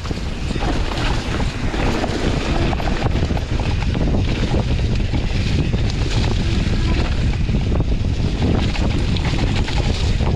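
Wind rushing over the microphone with the steady rumble and clatter of a mountain bike riding fast down a rough forest trail.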